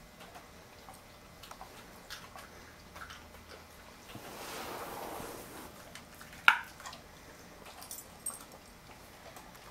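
Dogs chewing carrot pieces: scattered small crunches and clicks, with a soft rushing noise lasting over a second near the middle and one sharp, louder snap about six and a half seconds in.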